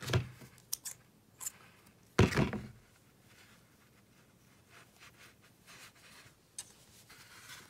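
Scissors picked up and handled to cut off the yarn: a few light clicks in the first second and a half, then one louder clack about two seconds in. Faint rustling of yarn and crochet hook follows.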